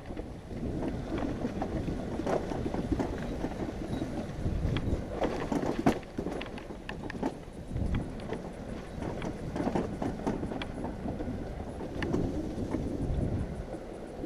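Trek 1120 bicycle towing a Burley Coho trailer, rolling over a dirt single-track trail: rough tyre rumble with irregular clicks and rattles from the bike and trailer. Wind on the microphone.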